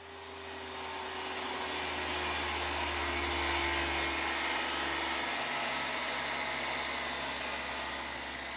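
Table saw running and cutting a lengthwise channel into a 2x2 wooden board fed along the fence, a steady sound of the blade in the wood whose tone sags slightly in pitch as it cuts.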